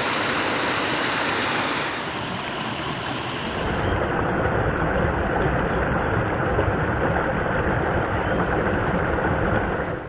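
Waterfall cascading down rock steps: a steady, loud rush of falling and splashing water. Its tone turns duller about two seconds in and again a little after three seconds.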